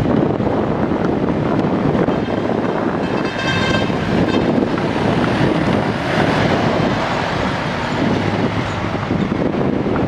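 JCB backhoe loader's diesel engine running steadily, with heavy wind noise on the microphone. A brief high-pitched tone sounds for about a second, roughly three and a half seconds in.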